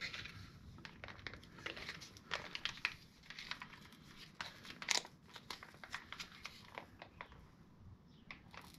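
Plastic quart bottle of gear oil being squeezed by hand as oil is squirted into a motorcycle's primary chaincase, its sides crinkling and crackling in irregular bursts that thin out near the end.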